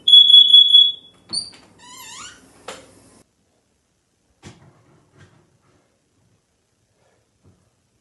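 Interconnected smoke alarm sounding during a test, set off by the alarm being tested elsewhere: one loud, steady, high-pitched beep that stops about a second in. It is followed by a short higher chirp, a brief squeaky sound that rises and falls, and a click, then near silence with a few faint knocks.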